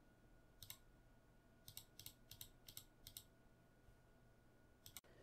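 Faint computer keyboard and mouse clicks: a single click about a second in, a quick run of about eight in the middle, and a double click near the end.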